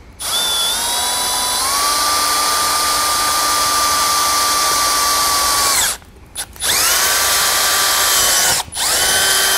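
Milwaukee cordless drill with a large bit drilling corner holes through an RV compartment door: a steady motor whine, first for about six seconds, then two shorter runs, each spinning up with a rising pitch.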